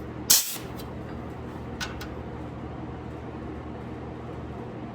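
A sheet-metal crimping tool squeezes a stepped edge into a steel door-skin panel, so that one panel can slide under the other for welding. There is one sharp crunch about a third of a second in, then two faint clicks around two seconds in, over a steady low hum.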